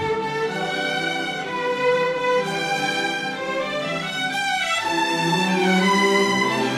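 Orchestral music with bowed strings playing a moving melody.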